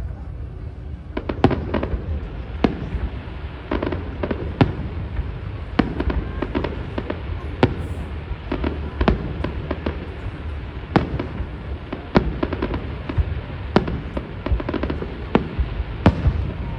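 Aerial fireworks display bursting: an irregular run of sharp bangs over a continuous low rumble, the bangs growing thick and fast about a second in.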